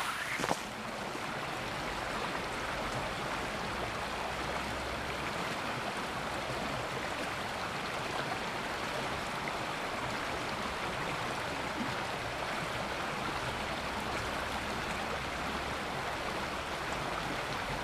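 River rapids rushing: a steady, even roar of white water with no change in level.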